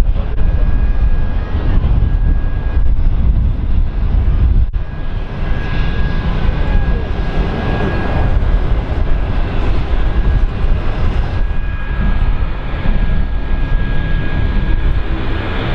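Jet engines running steadily at taxi power, a heavy low rumble throughout. After a brief dropout about five seconds in, a steady high whine sits over the rumble.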